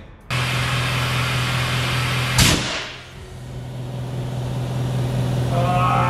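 Steady motor hum with a strong hiss of compressed air, and one sharp crack about two and a half seconds in, after which the hiss eases.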